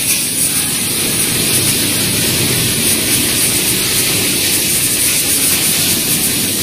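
Automatic pattern sewing machine running at speed, a steady dense rattling noise of fast needle strokes.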